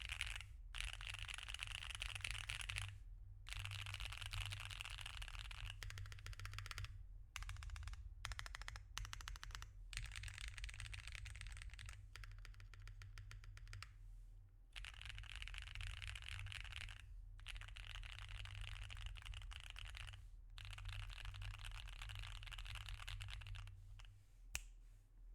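Typing on a mechanical keyboard fitted with tactile switches: rapid streams of keystroke clacks in runs of a few seconds, broken by short pauses, over a faint low hum.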